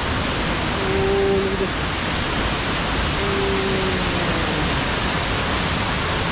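Steady rush of a waterfall's falling water, with two brief held tones over it, about one second in and about three seconds in.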